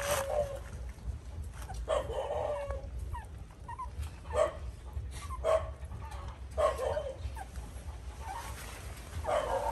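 Dogs giving short barks and yelps, about six in all, a second or two apart.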